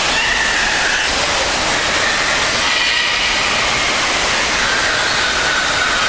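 Artificial waterfall pouring down a stone wall into its pool: a loud, even, unbroken rush of falling water.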